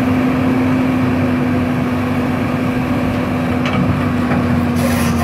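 Excavator diesel engine running steadily, a constant droning hum heard close up, with a short hiss near the end.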